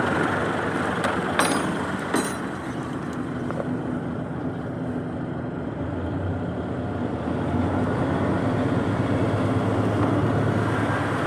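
Mitsubishi Fuso 6M70 six-cylinder diesel engine running at a steady idle, a little louder in the second half, with a few short clicks in the first couple of seconds.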